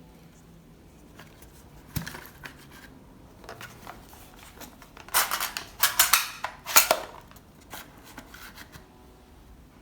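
Plastic toy gun parts being handled: a sharp click about two seconds in, then a burst of clicking and rattling with a loud snap near the end of it.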